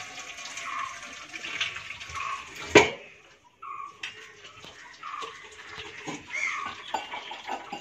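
Washing up with water at a kitchen counter: running or splashing water and steel pots being handled, with one sharp metallic clank about three seconds in. A short chirping call repeats about once a second in the background.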